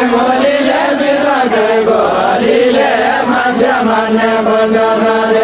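Voices singing a Nepali Deuda folk song in a drawn-out, chant-like melody. Near the end they hold one long steady note.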